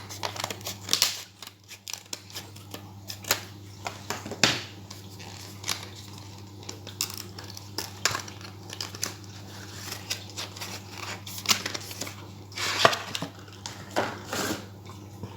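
Packaging of a new SSD being opened by hand: irregular crinkling, tearing and clicking of plastic and cardboard, with a few louder crackles.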